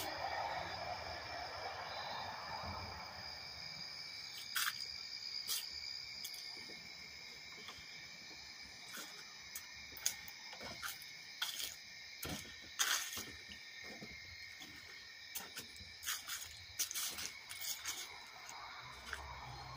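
Night insect chorus, crickets singing in a steady high continuous trill. From about a quarter of the way in, irregular sharp clicks and crackles come and go over it.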